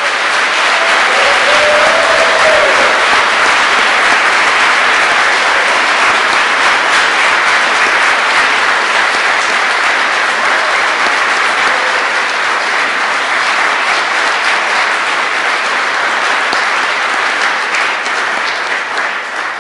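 Audience applauding steadily, with one person's hands clapping close by, dying away near the end.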